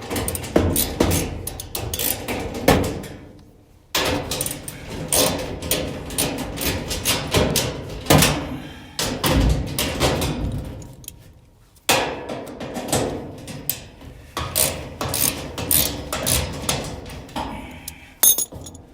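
Rapid, repeated knocking and clattering of a clothes dryer's metal panel and parts being handled and worked into place, in three runs with short pauses about 4 and 12 seconds in.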